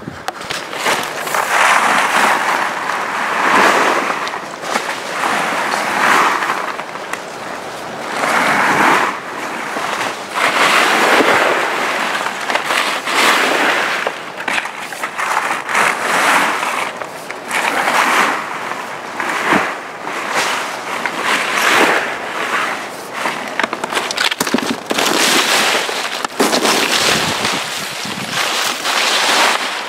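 Broom sweeping a thick layer of dry, crackly leaves and twigs across a travel-trailer roof, in repeated strokes about a second apart.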